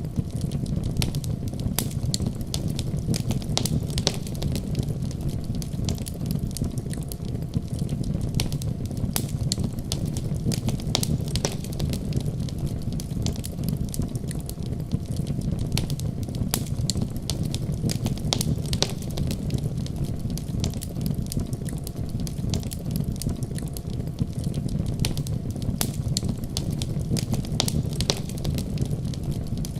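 Wood fire in a fireplace crackling, with frequent sharp pops and snaps over a steady low rumble.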